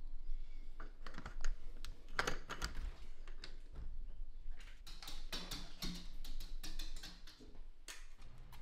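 An irregular run of many light, quick clicks and taps.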